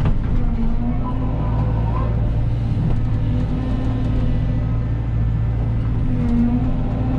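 Cat 313 excavator's diesel engine running steadily, with short hydraulic whines coming and going as the machine is worked.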